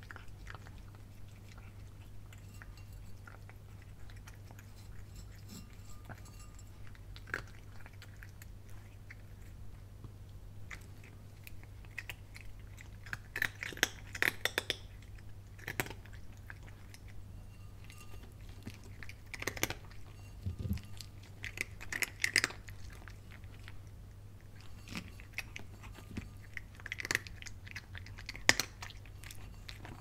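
A cat chewing dry kibble: crisp crunches come in bunches of several bites, separated by quieter pauses, mostly in the second half. A faint steady low hum runs underneath.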